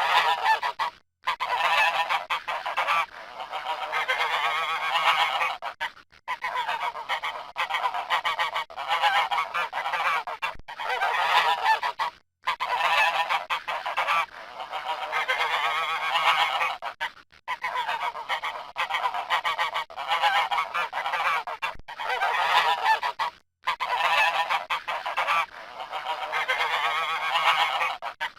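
Geese honking, many calls following close on one another in long runs broken by brief gaps. The same stretch appears to repeat about every eleven seconds, as in a looped recording.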